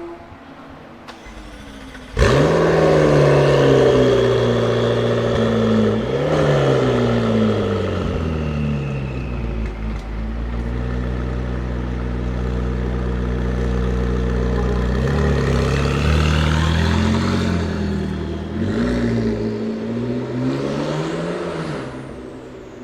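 A performance car's engine starts with a sudden loud flare about two seconds in, then settles into a steady run. It is blipped around six seconds and revved up and down a few more times in the second half, and the sound drops away near the end.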